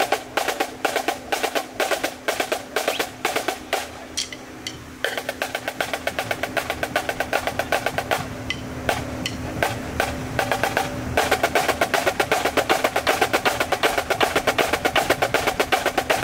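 Marching snare line playing in unison: rapid, tight strokes and rolls on high-tension marching snare drums. The strokes thin out briefly about four seconds in, and heavier accented strokes come in from about eleven seconds on.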